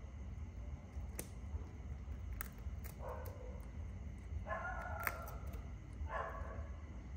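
A dog barking three times, about a second and a half apart, over a steady low background rumble, with a few faint clicks.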